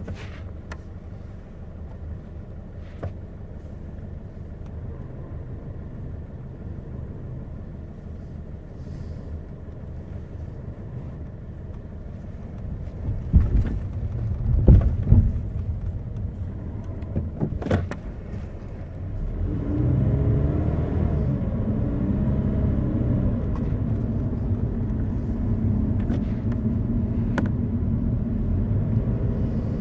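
A 2018 Subaru BRZ tS with its flat-four engine, driving with a steady low rumble. Between about 13 and 18 seconds in come several sharp knocks, the kind of rattle this recording was made to capture. From about 20 seconds in the engine gets louder and its pitch moves up and down as it pulls under load.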